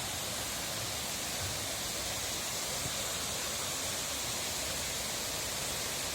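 Steady rush of running mountain-stream water, an even hiss with no breaks.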